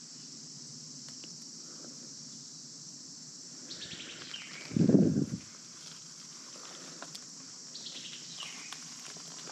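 Steady chorus of crickets, with a single loud, low thump lasting about half a second midway through.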